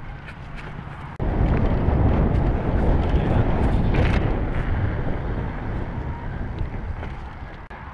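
Wind buffeting the microphone of a camera on a mountain bike riding fast, mixed with tyre rumble and rattle over brick pavers. The rushing noise jumps up suddenly about a second in, then slowly eases.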